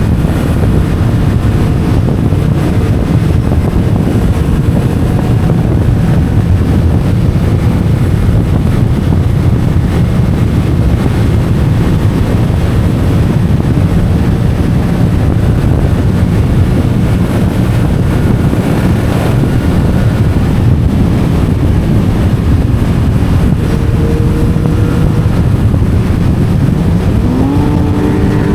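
Yamaha MT-07's parallel-twin engine running at speed through an Akrapovic titanium exhaust: a steady, loud low drone under a rushing haze, its pitch rising near the end as the engine revs up.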